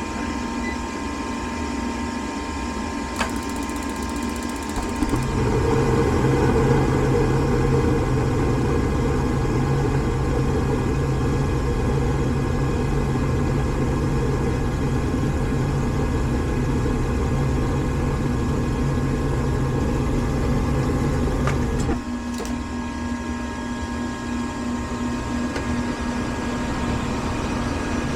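Steady mechanical hum of running HVAC equipment. About five seconds in a louder, deeper motor hum joins it, runs for roughly seventeen seconds, then cuts off abruptly, leaving the steady hum.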